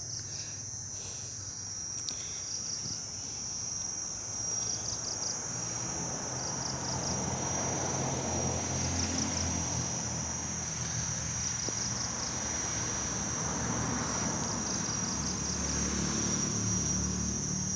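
Insects chirring steadily in two continuous high-pitched tones, with short pulsing trills every few seconds, over a low steady rumble.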